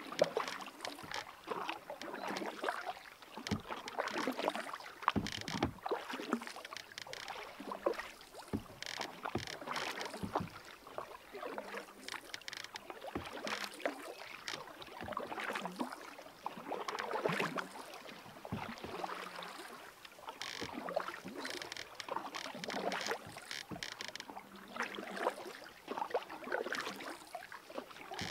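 Lake water splashing and slapping irregularly against the hull of a moving canoe as it is paddled through light chop.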